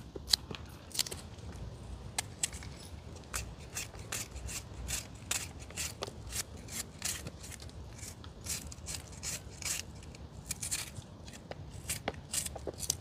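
Knife cutting up fresh seasoning vegetables: a run of crisp, irregular snips and clicks, a few a second.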